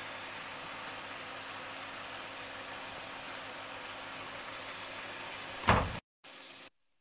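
Steady hiss with a faint low hum in a kitchen during cooking. Near the end comes a loud bump as the phone is handled, then the sound cuts off abruptly, with a brief burst of hiss before near silence.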